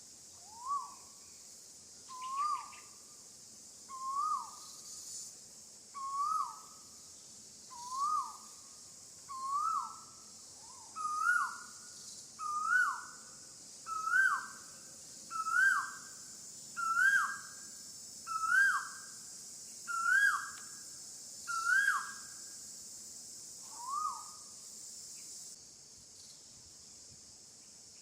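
An animal call repeated about fifteen times, roughly every one and a half seconds, each note swooping up then dropping, the series climbing gradually in pitch before it stops near the end. A steady high hiss runs underneath.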